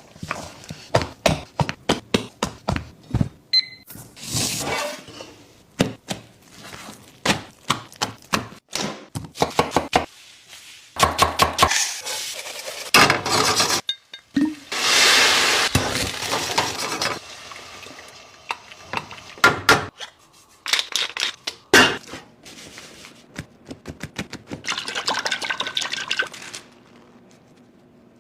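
Kitchen food-prep sounds: utensils and dishes clinking and knocking in quick irregular strokes, with a few longer stretches of noisy scraping or rustling.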